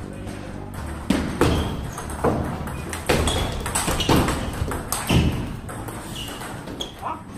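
Table-tennis rally: the ball clicks sharply off the bats' rubber and bounces on the table, about a dozen hits starting about a second in, roughly two a second.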